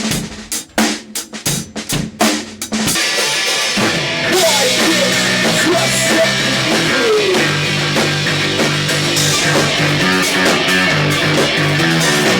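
Drum kit played in separate hits for about three seconds, then full band music comes in: drums with a sliding melody over them, and a low bass line from about halfway.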